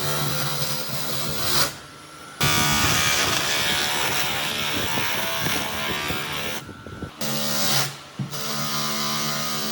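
Electric woodworking power tool running, with a steady motor hum and a louder, rougher stretch of machining in the middle. The sound cuts out abruptly twice, at edits.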